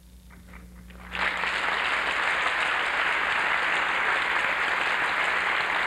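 Large audience applauding, breaking out suddenly about a second in and holding steady.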